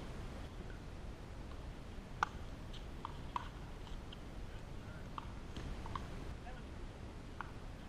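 Pickleball paddles striking the hard plastic ball: a string of short, sharp pops at irregular intervals, the loudest about two seconds in, with a few fainter distant ones. A low steady rumble runs underneath.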